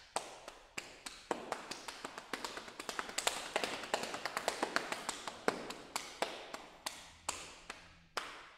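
Body percussion by two performers: a quick, uneven rhythm of sharp slaps and taps of hands on their own bodies, each stroke followed by a short hall echo. The strokes come thickest in the middle and space out toward the end.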